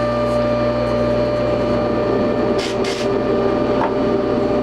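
Electric buffing machine running steadily: a motor hum with a few steady tones under the noisy whirr of the spinning buffing wheel, which is loaded with coarse bobbing compound. A brief hiss comes about two and a half seconds in.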